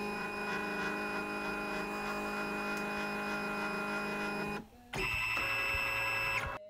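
Flatbed scanner's stepper motor whirring steadily as the scan head moves, a pitched hum with many overtones. It stops about four and a half seconds in; after a short break a second, higher-pitched whine runs for about a second and a half and cuts off suddenly.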